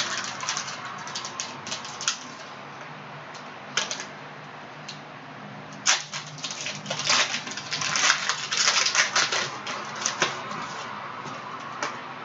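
Trading cards being handled and flipped through, a run of irregular light clicks and snaps, sparse at first and thickest about seven to ten seconds in.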